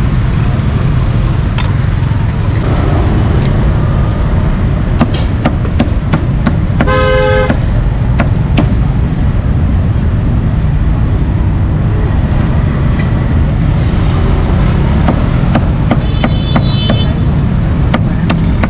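Steady street traffic rumble, with a vehicle horn tooting once, briefly, about seven seconds in. Scattered sharp knocks of a steel cleaver chopping roast meat on a wooden chopping block come through over the traffic.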